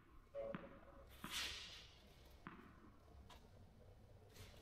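Faint taps of a tennis ball bounced on an indoor clay court before a serve, four in all at uneven spacing, with a brief scrape of shoes on the clay about a second in.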